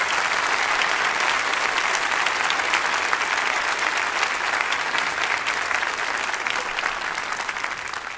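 A large audience applauding: dense, steady clapping that begins to ease near the end.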